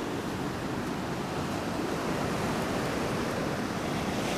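Ocean surf breaking and washing up a sandy beach: a steady rushing noise.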